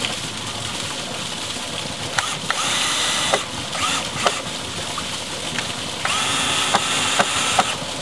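Cordless drill driving screws into wood in two runs, the first lasting about a second and the second about a second and a half, each a steady motor whine, with a few sharp clicks between and around them.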